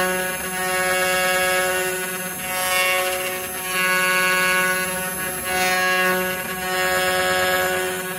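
CNC router's 1.5 kW water-cooled spindle milling aluminum with a quarter-inch ball end mill: a steady pitched whine with a singing chatter tone from vibration in the cut. It swells and eases about every second and a half as the cutter moves through its passes.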